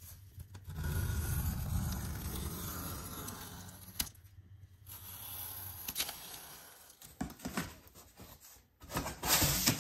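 Utility knife slicing along the packing tape on a cardboard shipping carton, in one long stroke and then a shorter second one, each ending in a click. Near the end, the cardboard flaps are pulled open and rub against each other, loudest at the very end.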